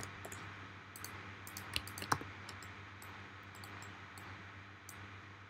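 Scattered, faint clicks of a computer keyboard and mouse, bunched in the first couple of seconds and sparser after, over a steady low hum.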